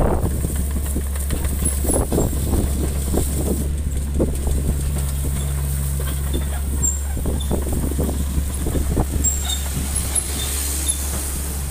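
Doosan DX55E mini excavator's diesel engine running steadily while the upper structure swings and the boom and arm move, with irregular knocks and clanks from the working machine.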